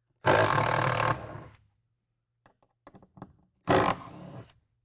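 Milwaukee cordless impact driver with a T30 Torx bit running twice to back out factory bed bolts. The first run lasts about a second. A shorter run comes near the end and tails off quieter. A few small clicks of the bit and bolt come between the runs.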